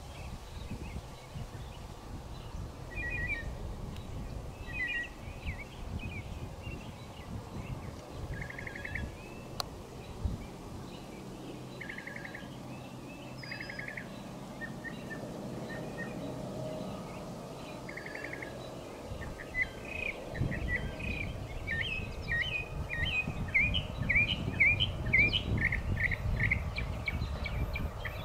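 Songbirds singing and calling, with short chirps and several buzzy trills that grow denser and louder in the last third. A low rumble builds underneath over the final several seconds.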